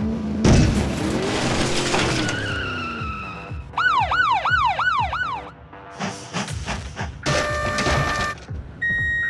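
Cartoon sound effects over background music: a noisy vehicle-like rush with sliding tones, then a quick warbling siren of about five rising-and-falling sweeps, a short horn-like blast and a brief beep near the end.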